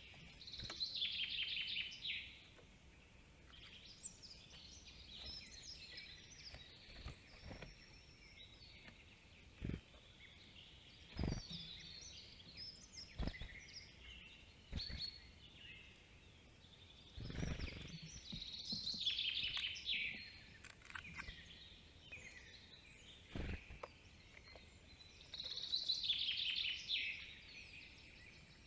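Forest songbirds singing, with a loud descending trilled song phrase repeated three times. Several short dull thumps come in between.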